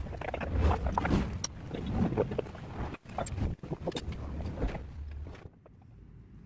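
Workshop handling noises: irregular knocks and clinks of metal parts and tools as an engine and gearbox are fitted onto a wooden motorcycle frame, over a low steady hum. The sounds thin out and grow quieter near the end.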